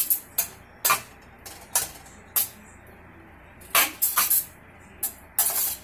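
A spoon scraping and clinking against a skillet while stirring a tomato and basil sauce, in about eight short, irregular strokes.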